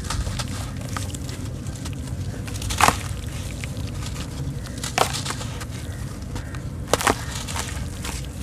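Soft, damp sand-cement lumps crushed and crumbled by hand over a basin of water. Gritty crackling runs throughout, broken by three sharp crunches about two seconds apart, the last one doubled.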